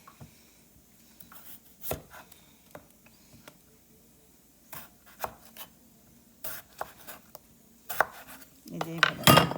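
A knife cutting raw potatoes into thick pieces, the blade striking the cutting board in scattered sharp chops, with the loudest strikes near the end.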